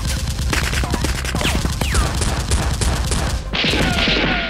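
Rapid automatic gunfire sound effects, a dense run of shots. Near the end the shots give way to a hissing rush.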